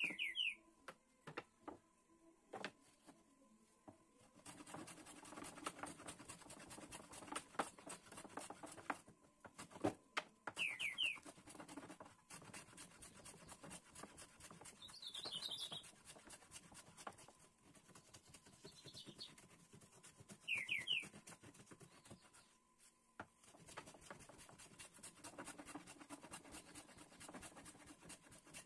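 Metal hand plane shaving a wooden board in long runs of quick, rasping strokes, after a few knocks as the board is set down in the first seconds. A bird chirps briefly about five times over it.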